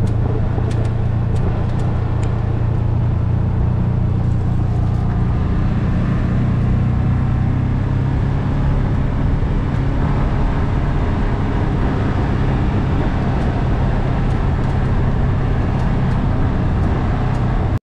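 Side-by-side UTV engine running at a steady speed while driving, heard from on board as an even drone, with a few light ticks in the first two seconds.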